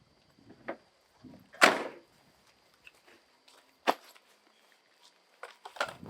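Objects being handled by hand: a few sharp knocks and clicks, the loudest a brief clatter about one and a half seconds in, and a quick run of clicks near the end.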